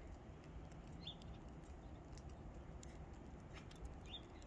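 Faint outdoor background noise with a few soft ticks, and a small bird giving a short high chirp twice, about a second in and near the end.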